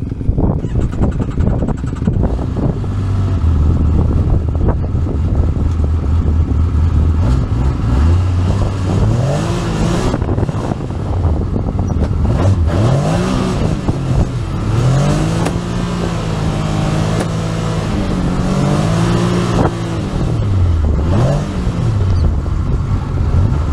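Side-by-side UTV engine running at a steady low speed, then revving up and down repeatedly from about a third of the way in as the vehicle drives over sand dunes.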